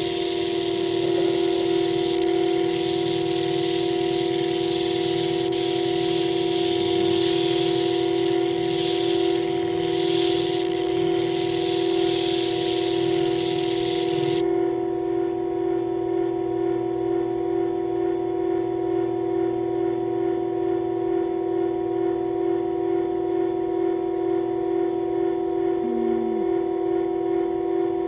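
Motor of a lapidary flat lap running with a steady, loud, high hum while the opal is worked on its spinning disc.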